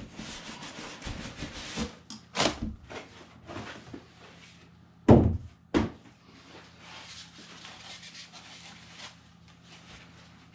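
Cardboard kit box being opened: the lid slid off and white foam packing sheets handled, with rubbing and rustling and two loud thumps about five and six seconds in.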